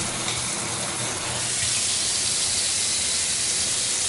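Delta single-handle kitchen faucet running, its water streaming from the pull-down spout into the sink as a steady rush that grows a little louder about a second and a half in.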